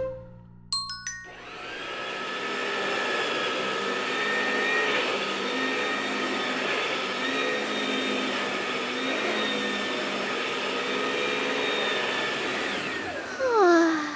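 Toy vacuum cleaner clicked on and running with a steady whirring hum for about eleven seconds, then stopping. A few quick falling tones follow near the end.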